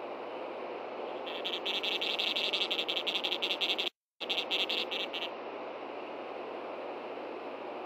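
Osprey giving a rapid series of sharp, high alarm chirps over steady background hiss, starting about a second in and stopping about five seconds in; the alarm of a female osprey defending her chicks at the nest. The sound cuts out completely for a moment about four seconds in.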